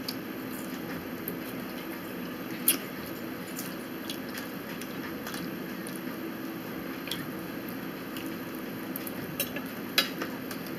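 Quiet eating at a table: soft chewing with a few sharp clicks of a metal fork against a plate, the sharpest near the end, over a faint steady hum.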